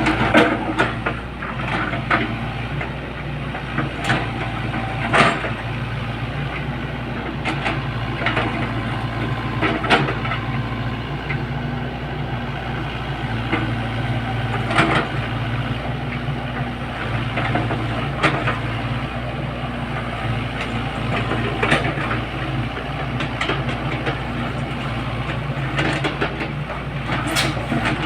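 Excavator's diesel engine running steadily, with sharp knocks every few seconds at irregular intervals.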